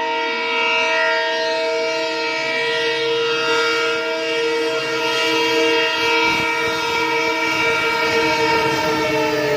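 Indian Railways locomotive horn honking in one long, unbroken blast: a steady chord of several tones held without a break, over a low rumble of the train.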